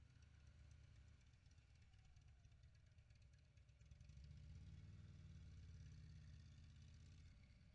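Touring motorcycle engine running at low speed, heard faintly as a low, rapid throb that grows a little louder about four seconds in.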